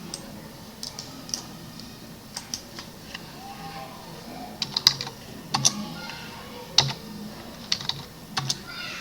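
Typing on a computer keyboard: irregular runs of keystrokes, with a few sharper, louder key presses in the second half.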